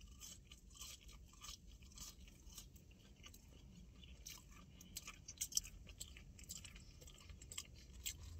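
A person chewing garlic fries: faint soft crunches and wet mouth clicks, a few louder ones about five seconds in.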